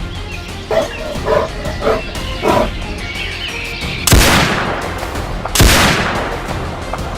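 Two rifle shots about a second and a half apart, each with a long echoing tail, after a few short barks, over background music.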